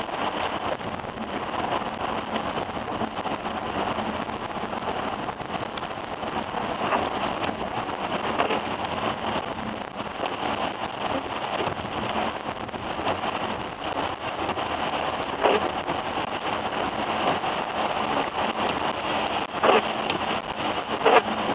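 Steady rain falling on a vehicle, with a few sharper hits in the last few seconds.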